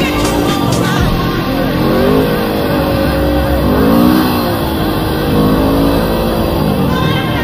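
Bashan quad with a swapped-in Suzuki GS500 parallel-twin engine, revving up and down while being ridden; the pitch climbs about two seconds in and peaks near four seconds before dropping back.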